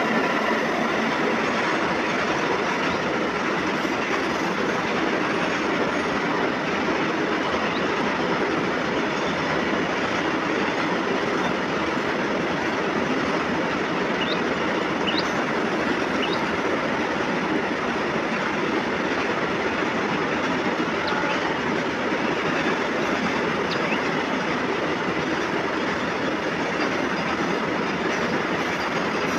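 Goods train of tank wagons, hauled by two electric locomotives, rolling steadily past: continuous noise of wheels on the rails, with a few short high squeaks from the wheels near the middle.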